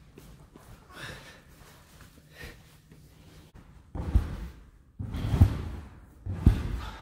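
Faint footfalls of a man running on a gymnastics tumble track, then, from about four seconds in, heavy thuds of his hands and body landing on the sprung track, three impacts about a second apart.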